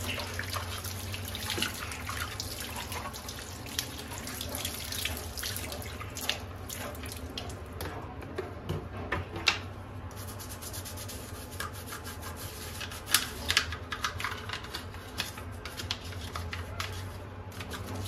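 Tap water running and splashing into a sink while a plastic vacuum-cleaner part is scrubbed by hand with a sponge and then a toothbrush, with scratchy scrubbing strokes and light plastic knocks.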